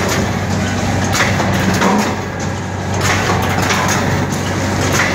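Vertical form-fill-seal powder packaging machine running: a steady low motor hum under dense mechanical clatter, with repeated sharp clacks.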